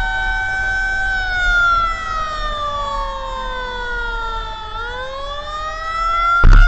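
Fire truck siren wailing: a held tone that slowly falls for about four seconds and then rises back quickly, over the rumble of the moving truck. A loud sudden thump comes near the end.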